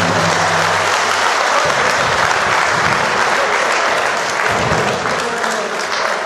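Audience applauding steadily, with a held music chord dying away about a second in.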